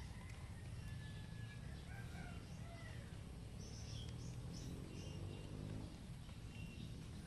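Faint rural ambience: scattered short bird chirps over a steady low background noise.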